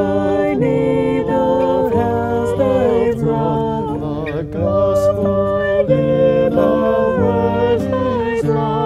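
A woman and a man singing a worship song together, accompanied by strummed acoustic guitar.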